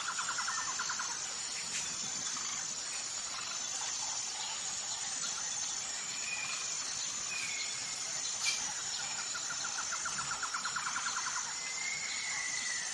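Forest ambience of birds calling over a steady high hiss and a thin steady high insect drone. A rapid trill comes at the start and again from about nine to eleven seconds in, with a few short chirps between, a sliding whistle near the end, and one sharp tick about eight and a half seconds in.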